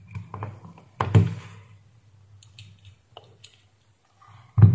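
Handling noise from a small circuit board and multimeter test probes being turned over and moved on a workbench: a sharp knock about a second in, lighter taps, and another knock near the end, over a low hum.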